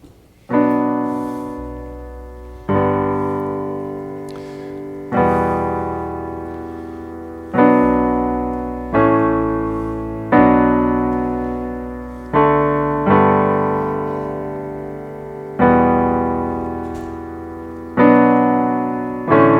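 Piano playing the slow introduction to a worship song: full chords with a low bass note struck every couple of seconds, each left to ring and fade.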